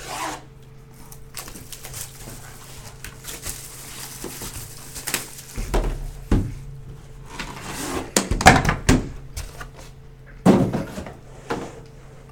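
A trading-card box and its packaging being handled and opened: scattered rustles, knocks and thumps, the loudest between about halfway and near the end, over a steady low hum.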